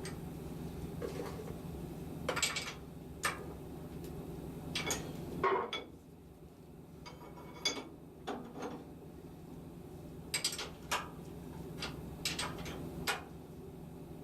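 Metal clinks and clunks from a metal lathe's levers and parts being worked, over a steady machine hum that cuts off about five seconds in.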